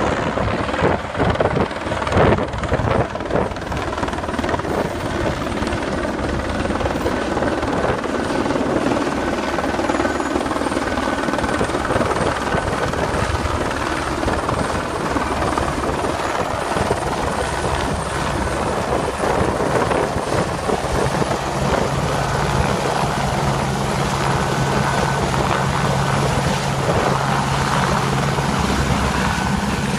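Air-ambulance helicopter coming in to land: steady rotor and turbine noise as it descends and hovers low over the field. A low steady hum joins about two-thirds of the way through as it nears the ground.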